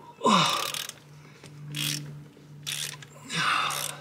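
Ratchet wrench being worked in four strokes about a second apart, each a short run of clicks, over a steady low hum.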